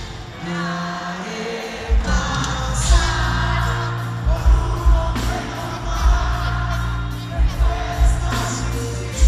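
Live banda music with a male lead singer over tuba bass, saxophone and a drum kit's kick drum. The bass and drums come in fully about two seconds in.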